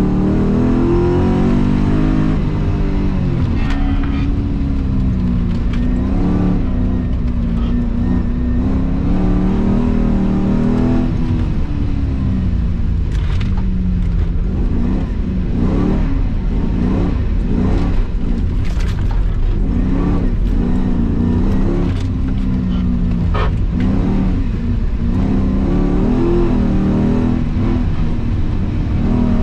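V8-swapped Mazda MX-5's engine revving up and falling back again and again as the car is driven hard, heard from inside the car. A few short sharp knocks come through the engine sound.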